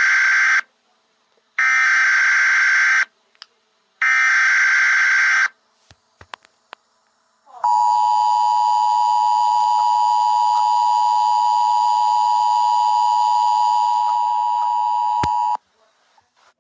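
Emergency Alert System tones: three buzzy bursts of SAME header data, each about a second and a half long, then the two-tone EAS attention signal, two steady beeps sounding together just under 1 kHz, held for about eight seconds before it cuts off.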